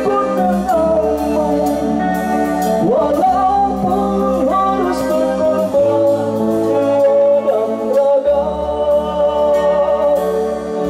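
Live band playing a song on electric bass, keyboard and drum kit, with a singer carrying the melody.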